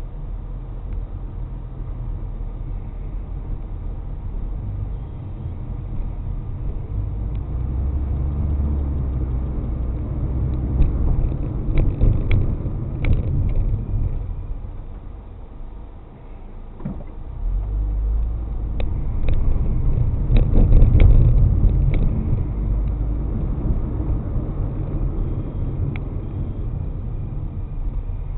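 A car being driven, heard from inside: a steady low rumble of engine and tyres that swells twice as it picks up speed, with a dip between, and scattered sharp clicks or rattles in the louder stretches.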